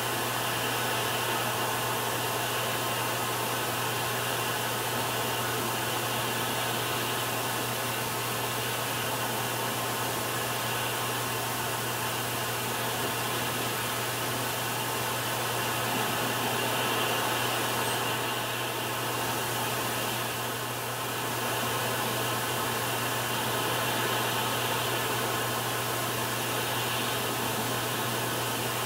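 Steady hiss with a constant low hum and no distinct events, dipping slightly about two-thirds of the way through.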